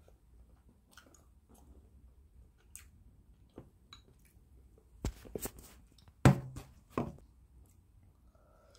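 Chewing a mouthful of meatball close to the microphone, with a few loud clicks and knocks about five to seven seconds in as a plastic fork hits the bowl.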